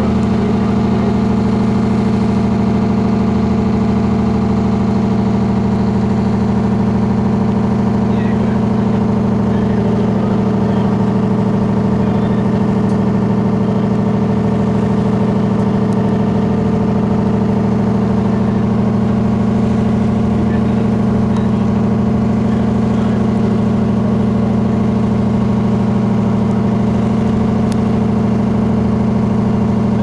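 Fishing boat's engine running steadily, a constant low hum with no change in pitch or loudness.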